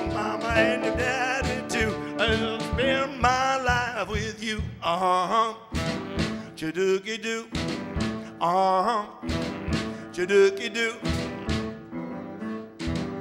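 Blues band playing an instrumental passage: a saxophone lead with bending, wavering notes over piano chords and a steady drum beat.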